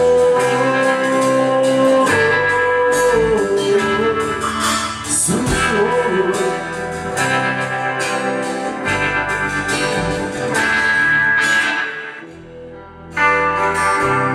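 Band playing an instrumental break: a sustained, gliding lead guitar melody over bass notes and chords. The music drops out briefly near the end, then comes back in.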